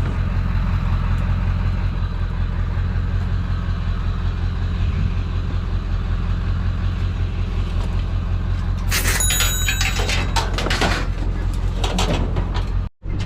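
A vehicle engine idling steadily. About nine seconds in comes a run of metallic clanks and rattles, one ringing briefly, as a bicycle frame is handled and loaded.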